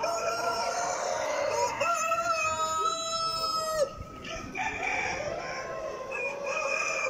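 Several roosters crowing, long crows overlapping one after another, with a short lull about four seconds in.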